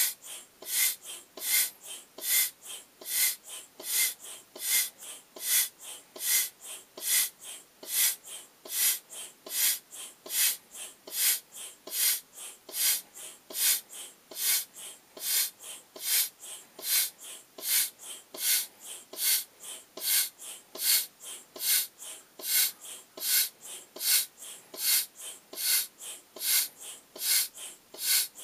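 Foot-operated air pump pumping air through its hose into a vinyl beach ball: a steady rhythm of hissing puffs, a strong puff about every 0.8 seconds with a weaker one between.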